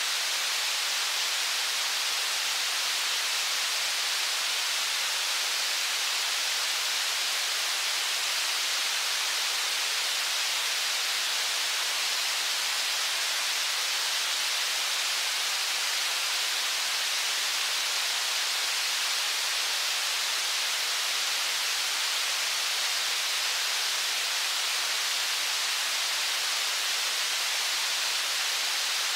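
Steady rushing of river rapids, heard as an even, unbroken hiss.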